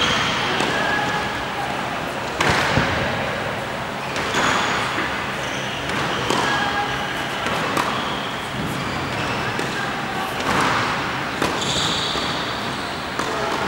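Tennis balls being struck by a racquet and bouncing on an indoor hard court, about one hit every two seconds, over a steady hall hiss.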